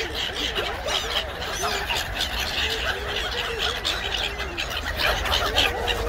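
Gulls, ducks and geese calling over one another in a dense, continuous chorus of short cries.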